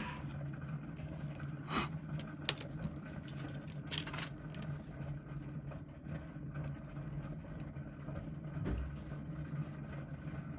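A few short, sharp clicks of small metal watchmaker's tools on a Seiko 7549 quartz movement, about 2, 2.5 and 4 seconds in, over a steady low hum.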